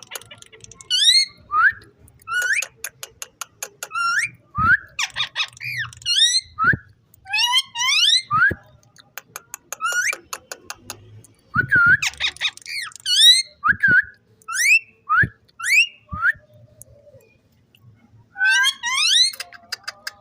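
Ringneck parrot giving a long series of short, sharply rising whistled calls, with bursts of rapid clicks between them.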